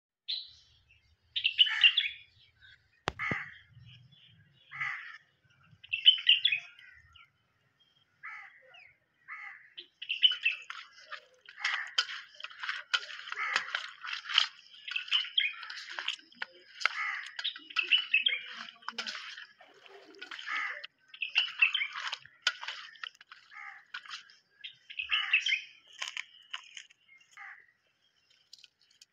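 Birds calling and chirping: short separate calls at first, then a busy run of overlapping calls from about a third of the way in.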